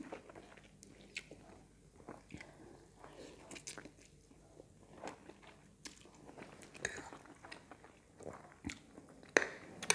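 Close-up mouth sounds of a person eating stir-fried pancit noodles: soft chewing with small wet clicks, and the noodles being slurped in.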